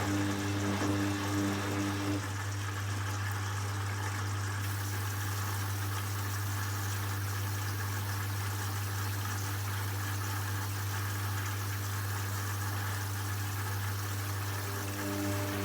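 Hoover front-loading washing machine in its final rinse: a steady low hum, with the motor's pitched whirr of the tumbling drum stopping about two seconds in and starting again near the end.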